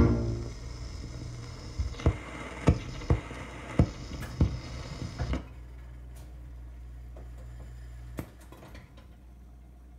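Wurlitzer jukebox mechanism working after the record has ended: a run of sharp clicks and clunks over a low motor hum. The hum stops about five seconds in, and one more click comes near the end.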